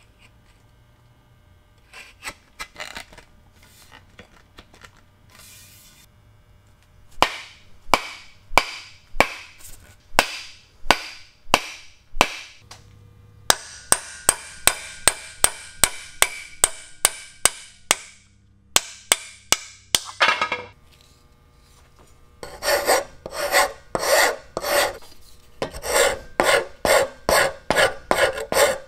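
A hand file rasping across a wooden axe handle in repeated strokes, shaping it to fit the axe head. The strokes come slower and more spaced earlier, about one and a half a second, with a steady hiss for a few seconds midway. In the last several seconds they turn fast and dense. Before the filing starts there are a few light clicks.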